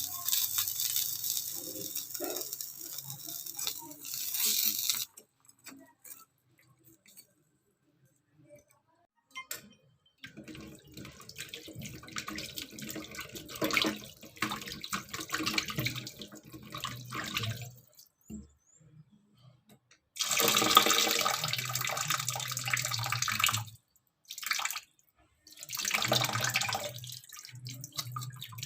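Water running from a tap into a sink in several spells of a few seconds each, with short quiet gaps between.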